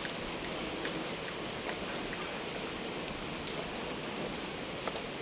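Steady rain falling, with scattered drops ticking sharply through the hiss.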